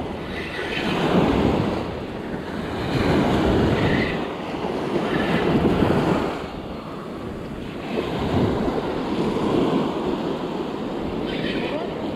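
Ocean surf washing in and out, swelling in long surges every few seconds, with wind rumbling on the microphone.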